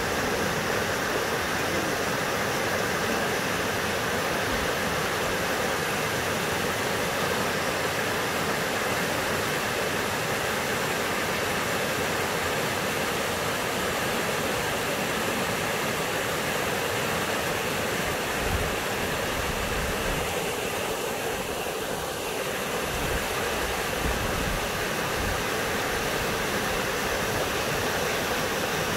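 Fast, shallow river rushing over rocks and small rapids: a steady, even rush of water.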